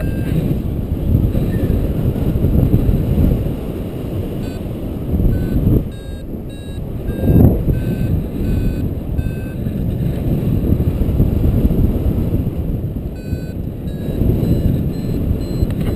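Paragliding variometer beeping in short repeated tones, its climb signal for rising air, over continuous wind rumble on the microphone in flight.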